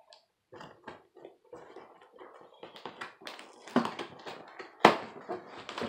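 Hands working at a package to get it open: irregular taps, rustles and scrapes, with two sharper knocks near the end.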